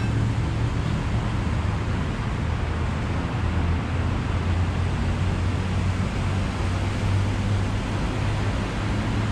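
Steady low rumble of street traffic, with no distinct events.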